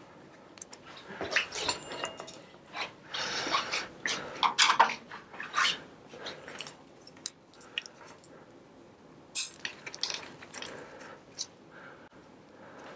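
Hex keys and hand tools clicking, clinking and scraping against a bicycle's quill stem and headset as they are fitted and turned. The sounds come irregularly, busiest in the first few seconds, with one sharp click about nine seconds in.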